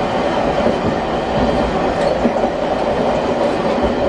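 Nagasaki Electric Tramway streetcar running along street track, heard from inside the car: a steady running noise of wheels on rail.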